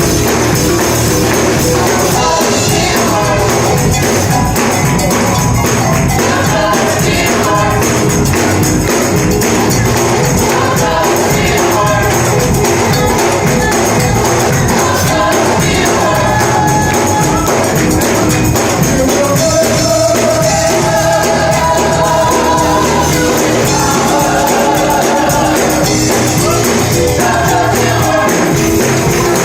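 Gospel worship music: voices singing together over instrumental backing, with a tambourine shaking along.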